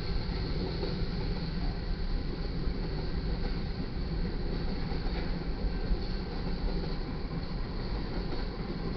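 Mixed freight cars of a manifest train rolling past at a crossing, a steady rumble of steel wheels on the rails.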